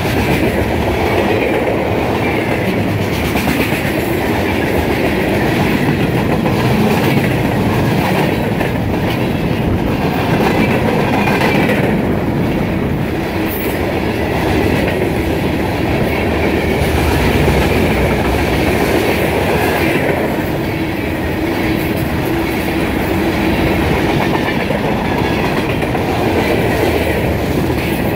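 A long freight train's cars rolling past, steel wheels clicking and clattering over the rail joints in a steady, loud rumble.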